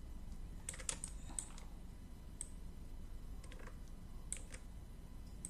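Scattered clicks of a computer mouse and keyboard keys as the pen tool is worked, a few close together about a second in and again near the end, over a faint low hum.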